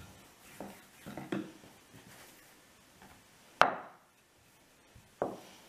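Wooden rolling pin rolling and knocking on a wooden pastry board as dough is rolled out: a few soft knocks in the first second and a half, a sharp loud knock about three and a half seconds in, and another knock about five seconds in.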